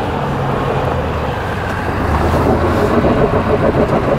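Ford F-350 Super Duty's Power Stroke turbo-diesel V8 running under load on a loose hill climb, getting louder about two seconds in.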